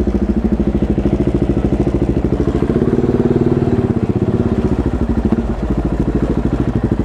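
KTM 690 Duke's single-cylinder engine running at low revs through an aftermarket exhaust with its baffle removed: a loud, rapid, even train of exhaust beats that lifts slightly in pitch about three seconds in, then eases back. The missing baffle is why it is this loud.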